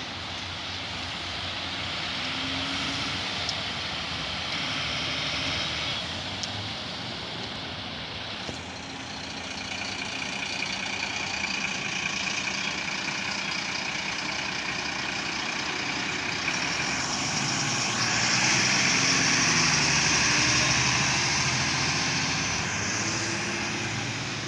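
Fire truck's engine running as the truck moves off and goes past, with road noise, growing louder about three-quarters of the way through.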